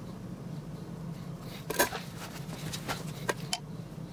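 A few light metallic clicks and taps as a digital caliper is set against a Norton Commando's cam chain to check its play at several points, over a steady low hum. The sharpest click comes a little under two seconds in.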